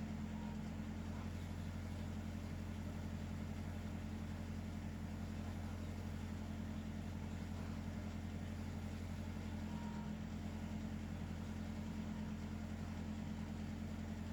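A steady low hum that holds level throughout, with no rise and fall of breathing in it.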